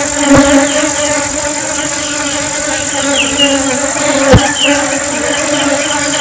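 Honeybees buzzing in flight, a steady drone with a slight waver in pitch. Two brief low thumps come through, one about half a second in and a sharper one past four seconds in.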